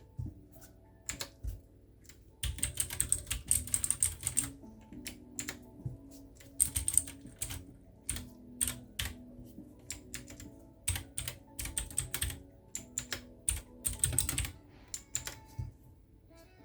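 Typing on a Redragon K630-RGB mechanical keyboard with clicky blue switches: fast runs of key clicks broken by short pauses and a few single keystrokes.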